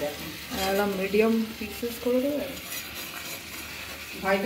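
Spatula stirring and scraping marinated mutton pieces around a metal kadai, with the meat sizzling in the pan.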